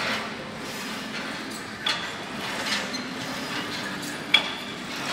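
Metal gym weights clinking: two sharp, ringing clanks, one about two seconds in and a louder one near the end, over a steady background hum.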